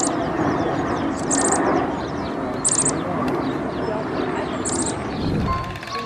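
Birds chirping: a short, high, rapid chirp repeats every second or two over a dense background babble of many calls.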